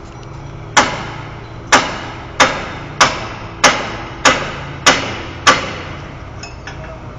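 Eight hammer blows on metal, each ringing briefly. The first two are about a second apart, then they come faster, about one and a half a second. A steady low machine hum runs underneath.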